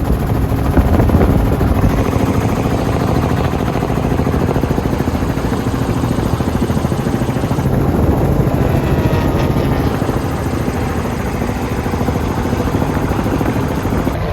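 Helicopter in flight: the rapid, even chop of the rotor blades over the steady drone of the engine.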